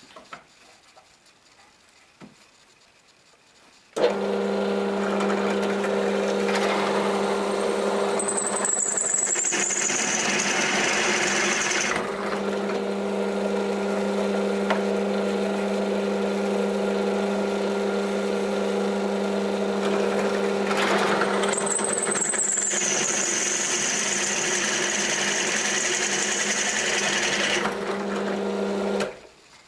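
Drill press motor switched on about four seconds in, running with a steady hum, then switched off near the end. Twice in between its bit cuts through a thin metal strap, each time with a high, slightly falling whine and cutting noise.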